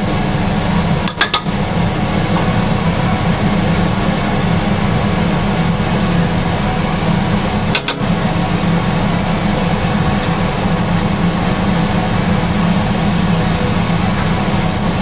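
Steady low roar and hiss of a wok over a gas burner, with sauce simmering and then onion and spring onion cooking in it. There are two brief dips, about a second in and about halfway through.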